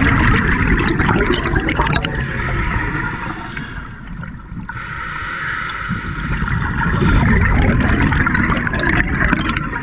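Underwater scuba breathing: exhaled bubbles from the regulator gurgling loudly, twice, with a steadier hiss of inhaled air in the middle.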